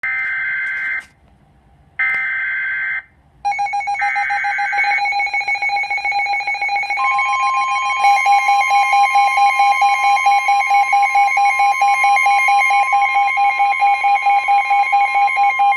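Emergency Alert System tornado warning opening: three one-second bursts of the buzzing digital data header with short gaps between them, then a rapidly pulsing alarm tone. About seven seconds in, a steady long alert tone joins the pulsing, and both stop abruptly at the end.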